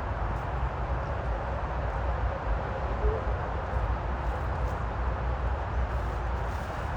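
Steady outdoor background noise: a continuous low rumble with an even hiss above it, and a few faint ticks.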